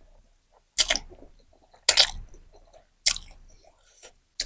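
Close-miked eating: wet mouth smacks and squishes while chewing, five short ones about a second apart.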